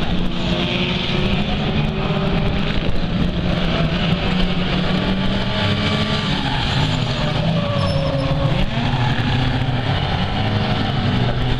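Several 1600cc banger racing cars' engines revving hard together, their pitch rising and falling as the cars accelerate and slow.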